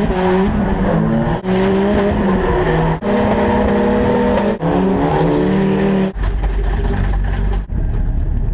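Nissan 240SX drift car's engine heard from inside the cockpit. It revs high and wavers through a drift, with short drops in revs about every second and a half. About six seconds in it falls to a low, steady rumble as the car slows.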